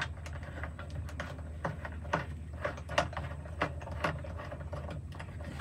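Small plastic backup-camera monitor and its dash mount being handled and its adjuster turned: a string of small irregular clicks and creaks.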